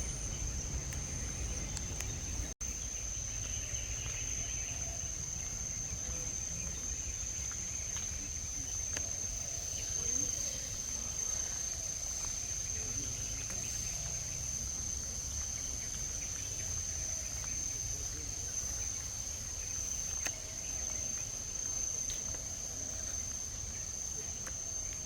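A steady chorus of forest insects holds one unbroken high-pitched buzz, over a low rumble. The sound drops out for a moment about two and a half seconds in.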